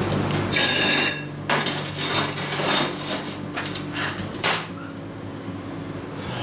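Steel parts and tools knocking and clattering in a metalworking shop, with a brief metallic ring about half a second in, over a steady hum of running machinery.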